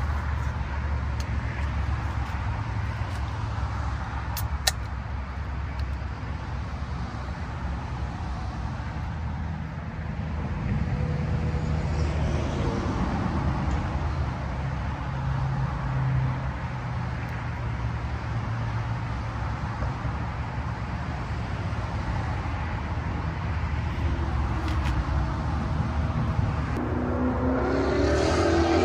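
Steady low rumble of highway traffic, with a lit canister gas stove burning close by. Beer is poured from a can into a stainless steel tumbler, and the pour is loudest near the end.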